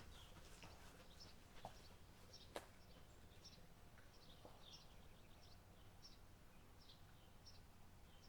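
Near silence outdoors with faint, repeated high bird chirps, a short call every half second or so. A single sharp click about two and a half seconds in.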